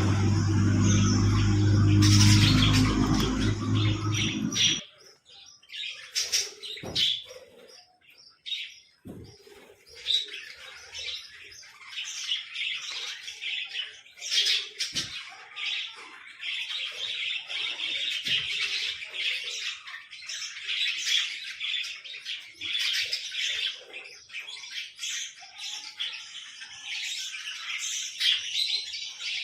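Small birds chirping and chattering continuously in quick high notes. A loud low rumble runs under the chirping at the start and cuts off suddenly about five seconds in.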